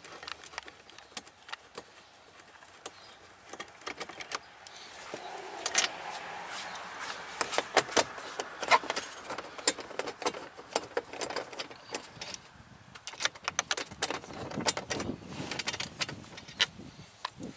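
Runs of quick clicks and rattles with rustling, from hand work taking out the two 10 mm bolts of the 4Runner's lower dash panel.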